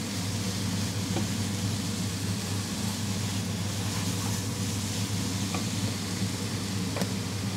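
Onions and mushrooms sizzling steadily in oil in a frying pan, over a steady low hum, with a few faint clicks.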